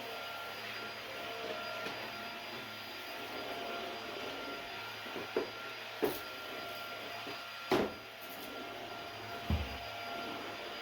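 Rowenta cordless stick vacuum running steadily with a whirring hiss and a faint whine. Four or five short knocks and clicks come a little past the middle, the loudest near eight seconds in.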